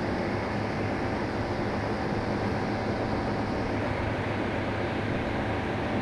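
Commercial refrigeration condensing unit running: a semi-hermetic compressor and two condenser fans make a steady mechanical hum with a low drone and a faint steady whine.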